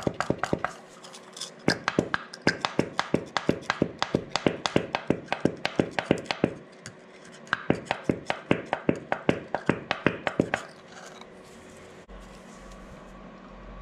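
Thumb-pump oil can being pumped to squirt oil into a hole drilled in the end of a crankshaft before it is tapped: a quick run of sharp metallic clicks, about four a second, with a short pause partway through, stopping about ten seconds in.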